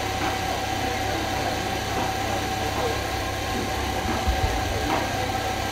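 A steady low hum with a faint constant tone above it, even in level throughout and engine-like in character.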